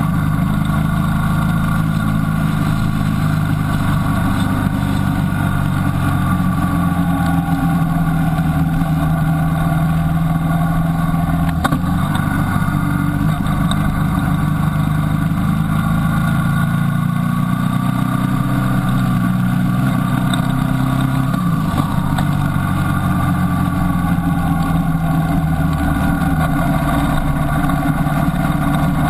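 Motorcycle engine running under way, heard from on the bike, its pitch slowly rising and falling with the throttle through the bends and easing off about two-thirds of the way through, over a steady rush of wind and road noise.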